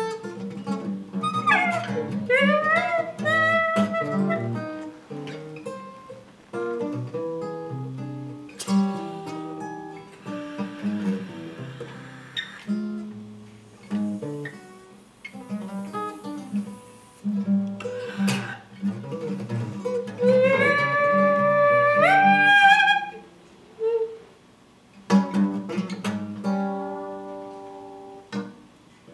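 Free improvised duet: an acoustic guitar picks short, scattered notes and clusters. A saxophone joins twice with high, wavering, sliding tones, near the start and again about twenty seconds in, the second time rising in steps. The playing thins out into sparse notes with gaps near the end.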